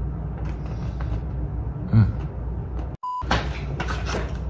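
Steady low room hum with a few soft knocks and handling noises. About three seconds in the sound drops out for a moment with a short beep, as at an edit, and clattering handling noise follows.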